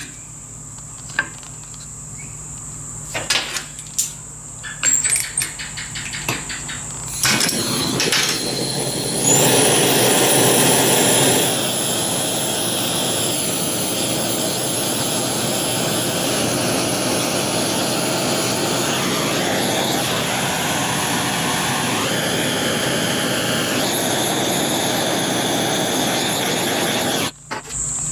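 A few clicks and knocks, then a handheld gas torch lights and burns with a steady hiss, heating lumps of scrap lead in a small steel pot to melt them for casting. The flame cuts off near the end.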